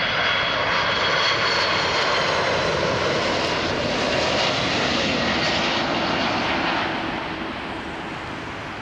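Jet engines of an Airbus A330-300 (GE CF6-80E1 turbofans) heard as the airliner lands, a steady loud rush with a high whine. The sound fades over the last couple of seconds.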